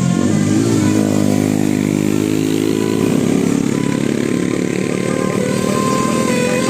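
Vehicle engine accelerating, its pitch rising steadily over the first few seconds and then holding at a steady drone.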